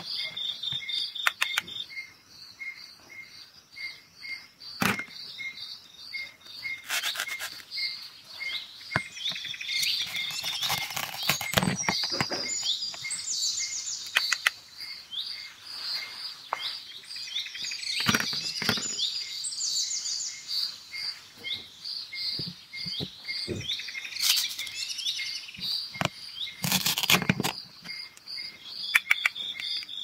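Plastic toy fruit pieces being handled and pulled apart at their Velcro joins: sharp plastic clicks and knocks and a few short Velcro rasps. Underneath runs a steady, evenly repeating insect chirping with occasional bird calls.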